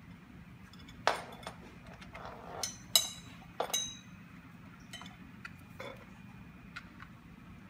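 Clinks and clicks of a screwdriver and screws knocking against a bed rail's metal tubes and plastic fittings during hand assembly: a cluster of sharp strikes in the first four seconds, the loudest about three seconds in with a brief metallic ring, then a few lighter ticks.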